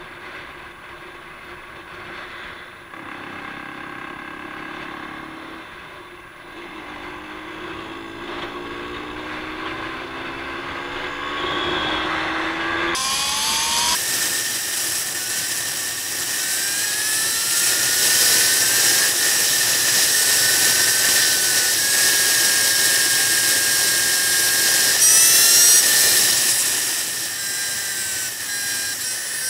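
Sport motorcycle engine revving, its pitch climbing again and again as it accelerates through the gears, with wind rushing over the onboard microphone. The wind noise jumps up sharply about halfway through and the whole sound grows louder.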